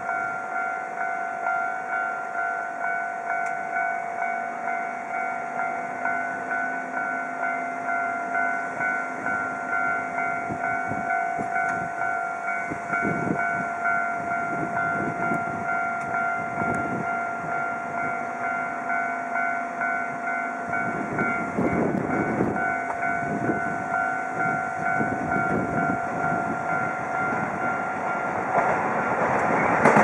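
Japanese level-crossing electronic warning bell dinging over and over at an even pace. Near the end, the noise of an approaching Keisei Main Line train rises quickly as it reaches the crossing.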